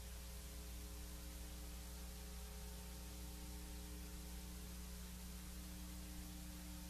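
Steady electrical hum with a constant hiss: the recording's background noise, with no other event.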